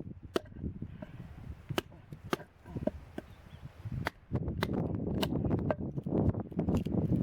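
A series of sharp, irregular cracks and snaps, with a low rumbling noise coming in about four seconds in.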